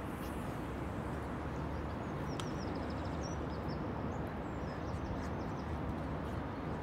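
Steady wind rumbling on the microphone, with a few short, faint bird chirps in the middle.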